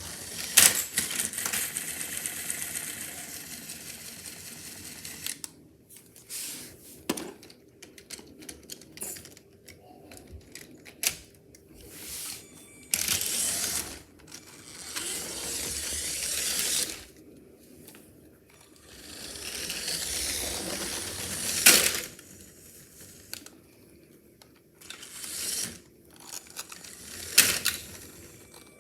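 Small hard objects clattering and clicking, with several stretches of scraping or rustling noise a few seconds long and a few sharp knocks.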